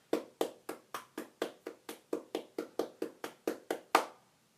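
Body-percussion hand strokes: a low hand sound struck alternately with two parts of the hand, played fast in an even run of about four or five strokes a second. The run ends on one louder stroke about four seconds in.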